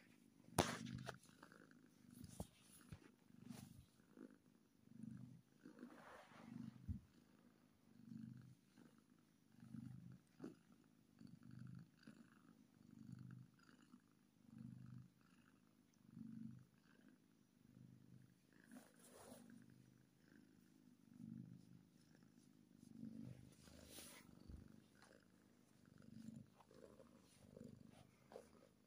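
Calico kitten purring while being stroked, the purr swelling and fading with each breath about once a second. A few brief rustles break in now and then.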